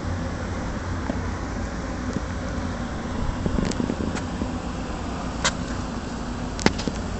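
Steady low outdoor hum with a few short sharp clicks in the second half.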